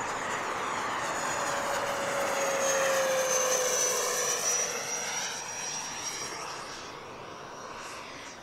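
E-flite F-18 Hornet RC jet's 80 mm electric ducted fan whining as it flies past, growing louder to a peak about three to four seconds in. Its pitch drops as it goes by, then it fades away.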